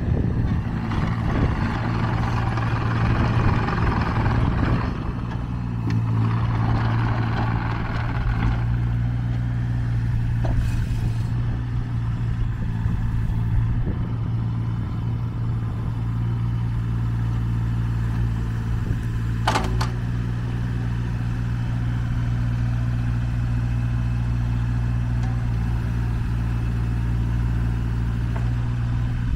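JCB 8018 mini excavator's diesel engine running steadily. A rushing noise lies over it for the first eight seconds or so, and a single sharp clank comes about two-thirds of the way through.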